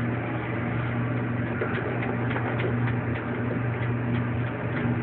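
A steady low hum over faint background noise, with a few light clicks in the middle.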